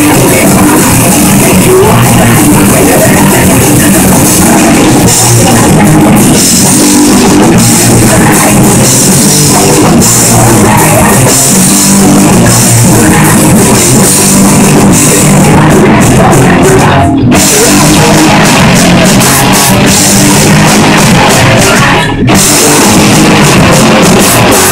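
Loud live punk rock band: distorted electric guitars, a pounding drum kit and shouted vocals. The music breaks off for an instant twice in the latter half and stops abruptly at the very end.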